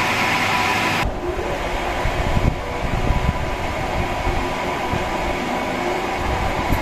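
Conventional lathe running with its spindle and chuck turning slowly, around 80 RPM: a steady mechanical rumble with irregular low knocks. The sound changes character about a second in.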